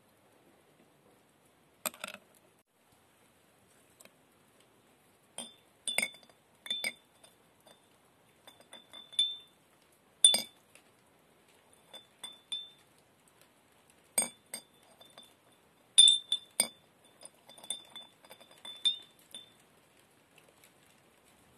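A small metal piece hung on a wire tapping against a glass jar: about a dozen light clinks at irregular intervals, each with a brief high glassy ring.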